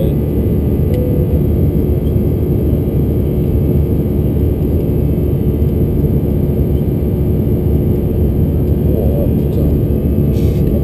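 Steady cabin roar of an Airbus A321-212 in flight, heard from a window seat beside the wing: its CFM56 turbofan engines and the airflow over the fuselage, with a faint steady hum running through it.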